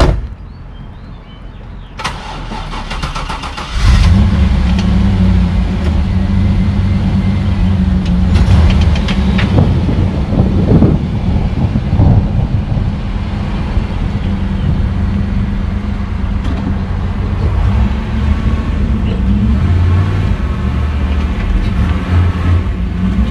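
1991 Chevrolet Camaro Z28's V8 being started: the starter cranks for about two seconds, the engine catches about four seconds in and settles into a loud, steady low rumble. Its pitch rises and falls a few times between about eight and twelve seconds in as the car pulls forward, then it runs on steadily.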